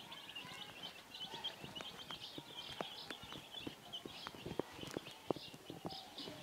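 Domestic chicks peeping over and over in short high cheeps, with a scatter of light taps and clicks.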